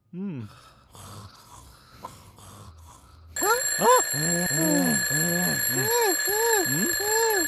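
An alarm clock starts ringing suddenly about three seconds in and keeps on as a steady high ring. Over it a voice-like cartoon sound rises and falls in pitch about twice a second.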